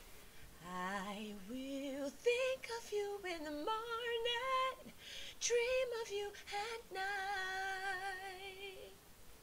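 A woman singing an R&B vocal harmony line into a studio microphone, a single voice heard without the backing track. The phrases slide between notes with vibrato, break briefly about five seconds in, and end on a long held note that fades shortly before the end.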